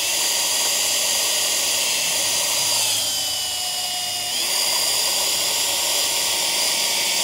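Electric drill motor running continuously with a steady whine; its pitch dips for about a second midway, then rises again.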